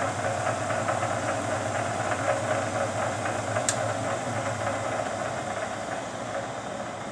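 Standard Modern 11 x 20 engine lathe running at its lowest spindle speed, 36 RPM: the 1.5 hp single-phase motor and headstock drive give a steady mechanical running sound just after switch-on. A single sharp click comes about halfway through.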